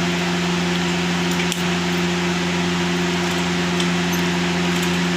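Steady machine hum with an even rushing noise over it, holding the same level throughout.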